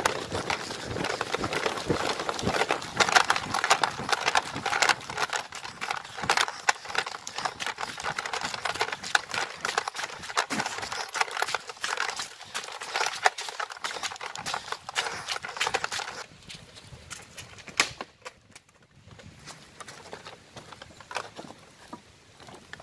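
Running footsteps through forest undergrowth, with leaves and branches brushing and crackling against the body-worn camera. About sixteen seconds in the rustle drops to a much quieter scatter of twig cracks and light rustling.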